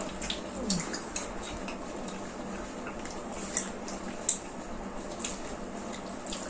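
Cutlery and dishes clinking: scattered light taps and scrapes of spoons on plates during a meal, with one sharper clink about four seconds in.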